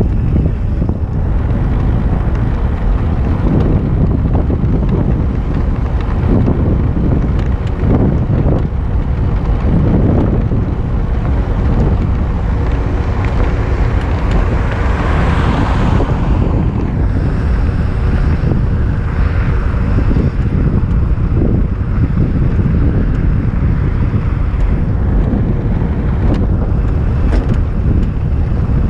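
Wind buffeting the microphone of a camera on a moving velomobile, a loud steady rumble, with a brief swell of higher hiss about halfway through.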